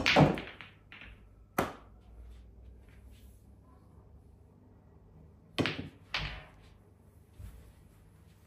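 Pool balls clacking on a small pool table: a cue strikes the cue ball at the start, and ball-on-ball and cushion knocks follow, one sharp clack about a second and a half in. A second shot comes about five and a half seconds in, with two sharp clacks half a second apart.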